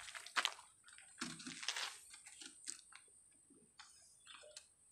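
Paintbrush being rinsed in water: faint, on-and-off splashing and swishing with a few light clicks.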